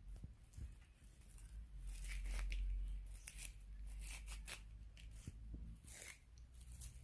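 Dry tearing and crackling in short, irregular strokes, with a low rumble about two to three seconds in.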